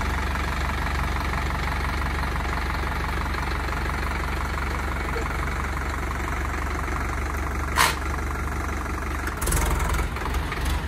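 Indo Farm 3065 tractor's diesel engine running steadily at low revs as the tractor creeps along in first low gear. A single sharp click comes about eight seconds in, and uneven low rumbling starts near the end.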